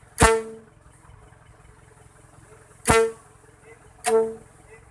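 Ban Pong vehicle horn sounding three short, loud blasts, each under half a second, a few seconds apart.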